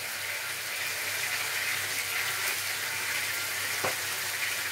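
Minced beef sizzling steadily in a frying pan, with a single light knock near the end.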